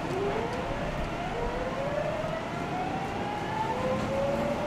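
Nagoya Municipal Subway 3050 series train accelerating, heard inside the car: the traction motors' inverter whine rises steadily in pitch in several tones over the rumble of wheels on rail.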